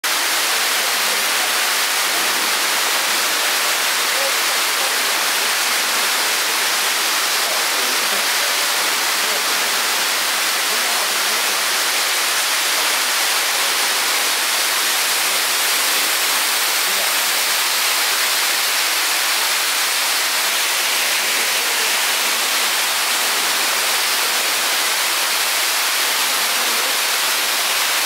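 Loud, steady rush of a tall waterfall plunging down a cliff into a pool: an unbroken hiss, with little deep rumble.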